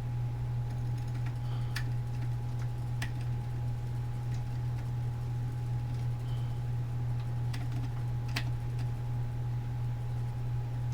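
Steady low electrical hum with a faint high whine under it, and a few light, scattered clicks from handling the digital microscope's controls while zooming and focusing.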